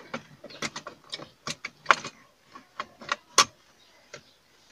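Hard plastic console trim in a Chevrolet Aveo being handled and pressed back into place, giving a string of uneven clicks and clacks, with louder snaps about two seconds in and again about a second and a half later.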